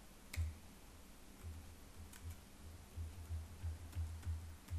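Faint, irregular keystrokes on a computer keyboard: mostly dull taps, with an occasional sharper click.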